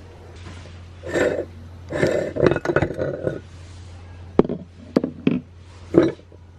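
Meat grinder crushing Orbeez water beads: irregular wet squelching bursts and sharp clicks over a steady low hum.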